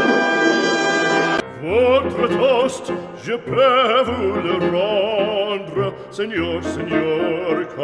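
Opera-style singing over music, with held notes in a wavering vibrato. It comes in suddenly about a second and a half in, replacing a steady sustained chord.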